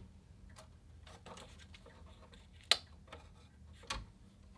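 Scattered light mechanical clicks from a Remington Streamliner portable typewriter being handled rather than typed on, with one sharp click about two and a half seconds in and another near the end.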